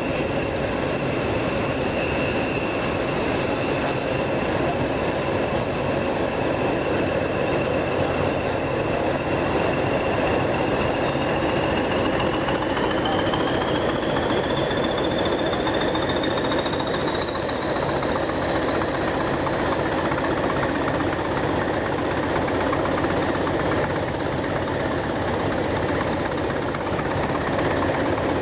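English Electric Class 20 diesel locomotive working hard up a climb: steady engine and running noise with a high whistle that holds steady, then rises smoothly in pitch over the second half.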